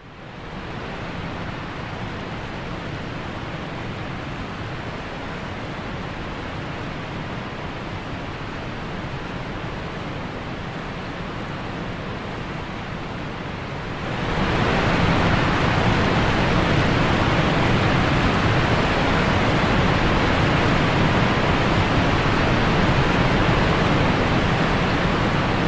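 Steady roar of a waterfall's rushing water, an even noise with no rhythm that becomes clearly louder about halfway through.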